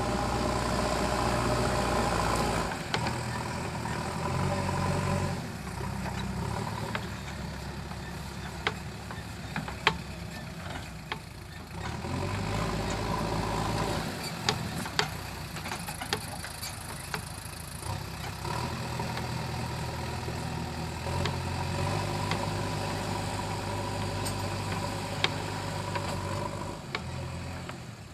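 Diesel engine of a JCB 3DX backhoe loader running under changing load, its note rising and falling every few seconds, with sharp knocks now and then.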